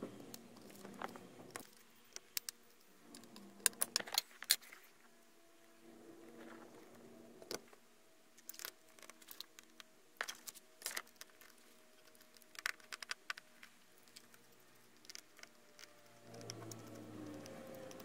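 Small hand tools clicking and tapping against an opened tablet's frame and circuit board: scattered sharp clicks, several in quick clusters, over a faint steady hum.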